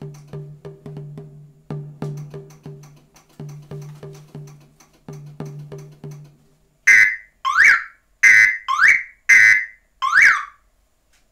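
Background music with a steady beat, then, about seven seconds in, a two-tone police horn sounds six short, very loud blasts that alternate between a steady tone and a rising whoop. The horn is run at 9 volts instead of 12 to tame its loudness.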